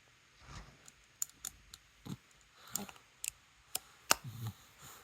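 Scattered light metallic clicks and taps as a small screw and tools are handled and fitted into a Weber DCOE carburetor during reassembly, about eight sharp ticks at uneven intervals.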